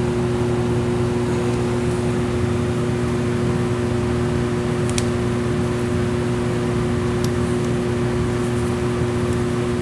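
Steady machine hum: a constant rushing, fan-like noise with a steady two-note drone, unchanging throughout, with a couple of faint ticks about five and seven seconds in.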